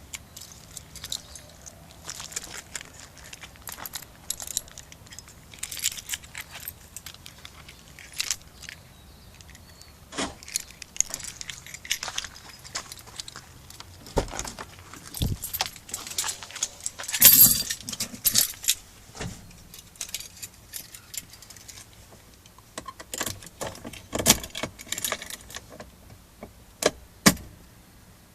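A bunch of keys jangling, with irregular clinks and clicks throughout and the loudest flurry about seventeen seconds in.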